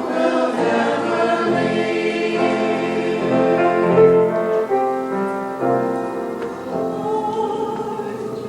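A choir singing, with several voices holding notes together.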